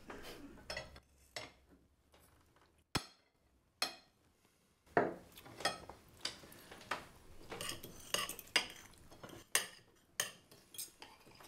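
Knives and forks clinking and scraping on dinner plates as people eat: scattered light clinks, more frequent in the second half.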